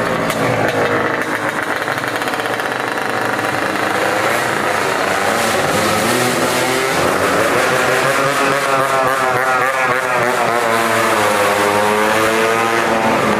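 Tuned two-stroke racing scooter engines at full throttle, several engine notes overlapping and rising and falling as they rev through the gears.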